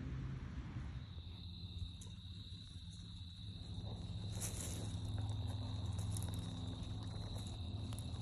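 An insect trilling a steady, high, unbroken note that starts about a second in and carries on. Under it are a low rumble and a few faint rustles in the leaf litter.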